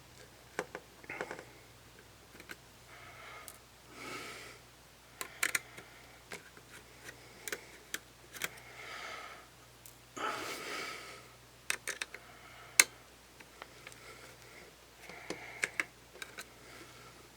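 Faint, scattered light clicks and ticks of a small precision screwdriver and tiny screws being worked out of the inside of a Nikon D5500 DSLR, with a few soft swishes in between.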